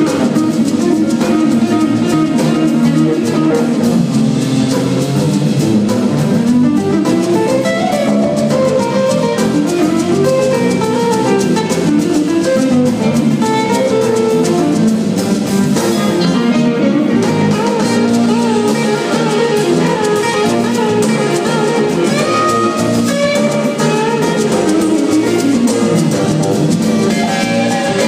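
Live jazz-funk band playing: electric guitar over electric bass, keyboards, drum kit and congas, steady and loud throughout.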